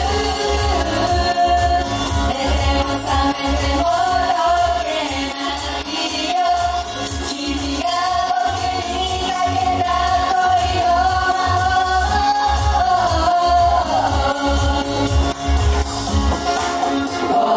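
Live J-pop idol song: several young female voices singing together into microphones over a backing track with a steady bass-drum beat.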